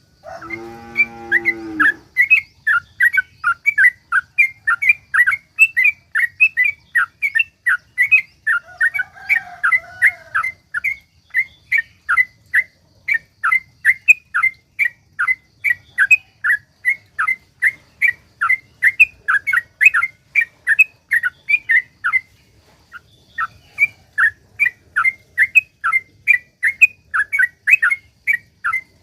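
Yellow-vented bulbul (trucukan) singing a long, rapid run of short, sharp chirps at about four a second, with a brief pause past the middle. A lower, drawn-out call sounds over the opening two seconds.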